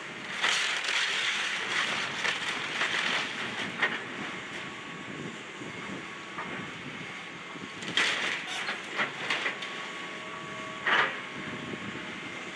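Excavator demolition of a building: debris crunching and cracking as it breaks apart, in a long spell during the first few seconds, again about eight seconds in, and one sharp crack near the end. A steady machine noise with a faint whine runs beneath it.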